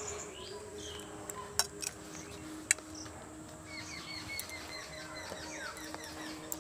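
Birds chirping faintly in the background, with a few light clicks of a metal spoon against a ceramic plate, the sharpest nearly three seconds in.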